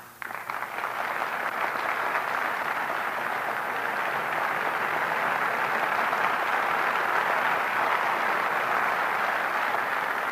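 Audience clapping, swelling over the first second or two and then holding steady.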